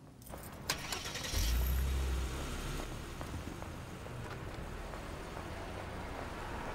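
A car pulls away: a sharp click near the start, then a low engine rumble that is loudest for about a second and settles into steady road noise.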